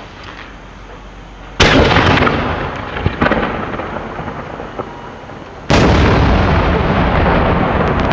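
Two heavy booms from large 10–12 inch aerial firework display shells, about four seconds apart. Each is followed by a long rolling echo off the surrounding valley. A few smaller sharp cracks come between them, and crackling runs on under the second echo.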